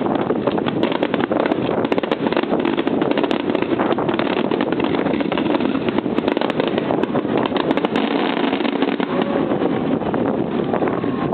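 Countless small fireworks bursting in rapid succession, a dense, unbroken crackle of pops and bangs.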